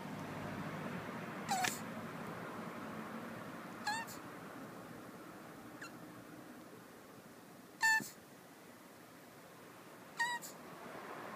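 Male tortoise squeaking while mounting a female in mating: short, high-pitched squeaks, one about every two to two and a half seconds, the one near the middle fainter.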